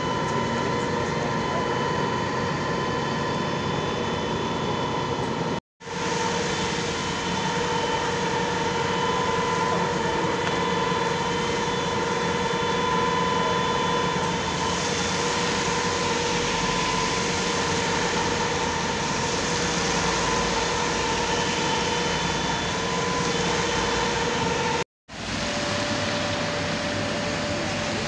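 Steady drone of parked fire engines running, with a constant hum over it. The sound cuts out briefly twice, and after the second break the hum is slightly higher.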